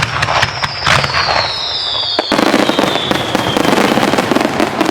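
Aerial fireworks going off: a loud bang right at the start and further sharp reports. A long whistle falls slowly in pitch over about three seconds, and from about halfway through a dense crackle runs on, as from crackling-star shells.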